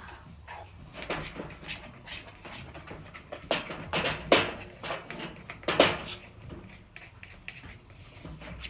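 Glue and shaving-cream slime mixture being stirred with a stick in a container. It gives scattered sharp squelches and knocks, the loudest about four and six seconds in.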